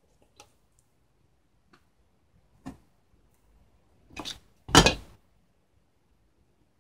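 Handling noise from working fishing line and cord by hand: a few faint ticks, a short tap, then two louder rustles a little past the middle, the second the loudest.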